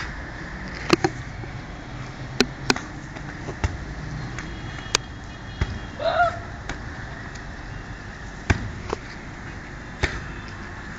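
Gloved punches and kicks landing on a heavy punching bag: about a dozen sharp smacks at irregular intervals, with a brief voice cry about six seconds in.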